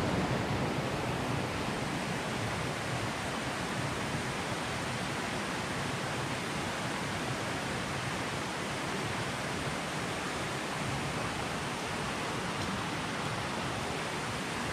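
Steady rush of creek water tumbling over the cascades.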